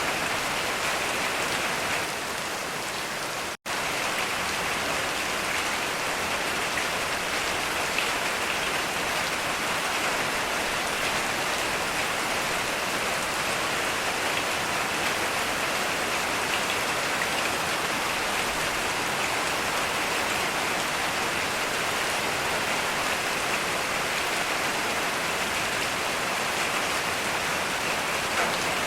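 Heavy rain falling steadily as a continuous even hiss, with no thunder. The sound cuts out for an instant about three and a half seconds in.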